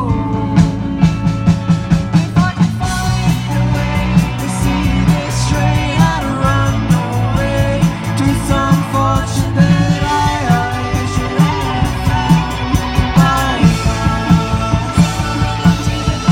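Music: a rock song with a singing voice over a steady beat.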